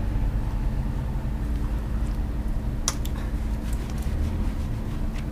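Hands working soap lather into a small dog's wet fur during a bath, with a few short sharp clicks and small splashes, the loudest about three seconds in. Under it runs a steady low rumble and hum.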